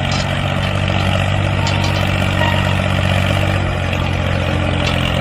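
Steady low engine drone of a small tractor running at idle, with no change in speed.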